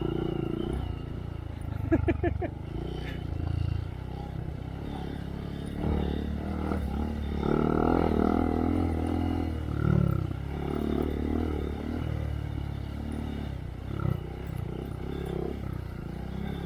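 Honda Monkey's single-cylinder engine through a Yoshimura RS3 exhaust, running under way on a trail, its note rising and falling with the throttle and loudest between about six and ten seconds in. A brief clatter about two seconds in.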